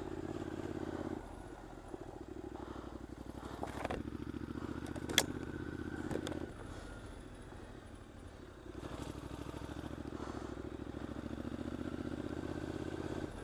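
Triumph Scrambler's 865 cc parallel-twin engine running at low speed on an off-road track. The throttle is eased off and opened again a couple of times. There is a sharp knock about five seconds in, with a few lighter clicks.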